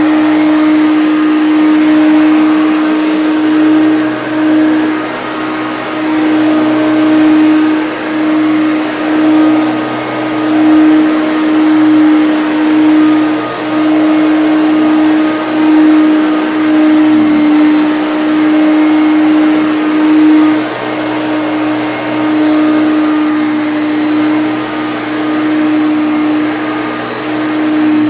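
Hoover Concept One upright vacuum cleaner running, its motor holding a steady whining tone. The loudness swells and eases every second or two.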